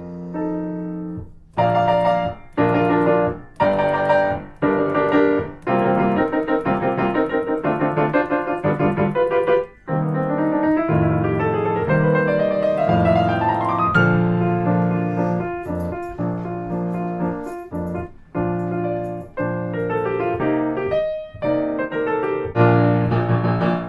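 Solo piano music: separate struck notes and chords, with a rising run of notes about halfway through.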